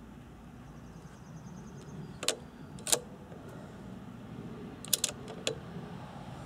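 Bolt of a CZ .17 HMR rifle being worked between shots: sharp metallic clicks, two a little over two seconds in, then three in quick succession about five seconds in.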